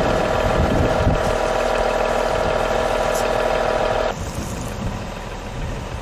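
Fire pump engine running steadily while a fire hose sprays water. About four seconds in, the engine tone stops and a quieter steady hiss remains.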